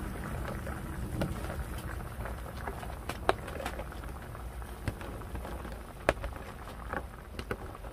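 Beef short-rib stew bubbling in a cast-iron pot, with sharp clicks of metal tongs and vegetable chunks being dropped into the pot; the loudest clicks come about three and six seconds in.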